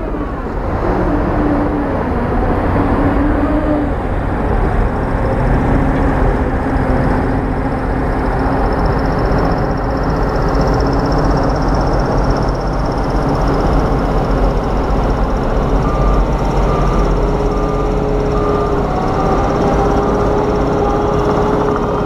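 Heavy diesel engines of earthmoving machinery (a bulldozer and dump trucks) running loud and steady, the engine pitch shifting as they work. A short run of faint, evenly spaced high beeps comes in late.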